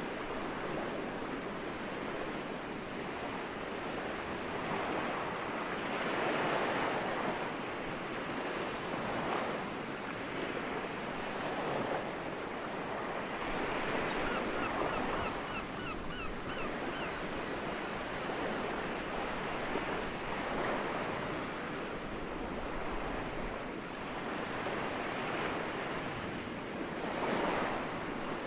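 Gentle sea waves washing onto the shore, the surf swelling and falling back every few seconds. About halfway through, a gull gives a quick series of about eight short calls.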